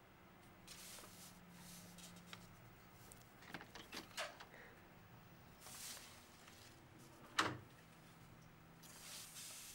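Faint, quiet room sound with a few soft rustles and small clicks, then a sharp latch click about seven seconds in as a door is opened.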